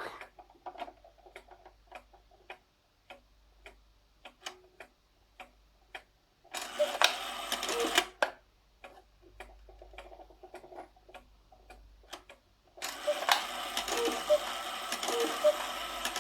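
Antique cuckoo clock running: the movement ticking and clicking, then a brief busy whir of the mechanism. Near the end the cuckoo call sounds over a steady hiss, a higher note then a lower one, repeating about once a second.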